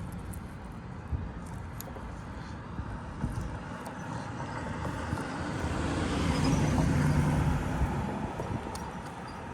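A car passing close by: its noise builds over a few seconds, is loudest about two-thirds of the way through with a low steady hum, then fades away. Faint small clicks run through it.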